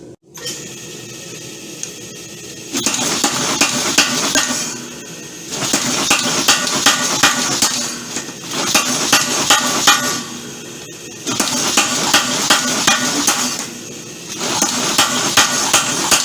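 Homemade power hammer striking hot leaf spring steel in five runs of rapid, evenly spaced blows, each run lasting two to three seconds with short pauses between.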